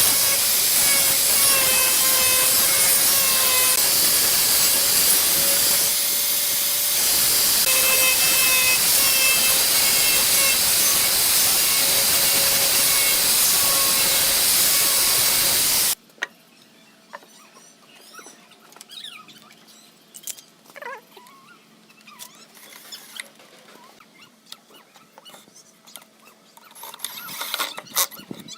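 Woodworking power tool running with a loud hiss and a wavering whine that dips and rises as it works, cutting off abruptly about sixteen seconds in. After that come scattered light clicks and knocks, with a short louder scrape near the end.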